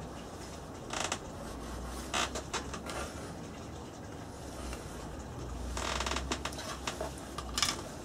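Pencil scratching on hardboard as it is drawn along the edge of a perspex sheet, in a handful of short strokes with the longest about six seconds in.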